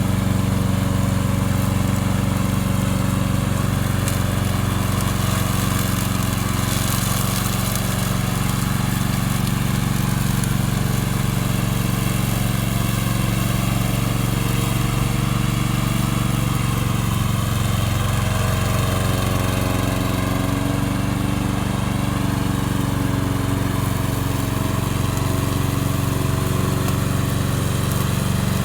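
Gasoline engine of a remote-control commercial lawn mower running steadily at constant speed.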